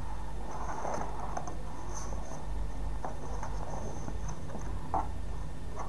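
Faint rustling and light taps of a folded paper poster being handled and folded, with one slightly louder tap about five seconds in, over a steady low hum.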